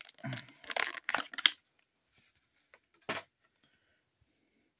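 Plastic blister packaging crinkling and rustling in a few short bursts as a small plastic toy figure is worked free by hand, then a single sharp click about three seconds in.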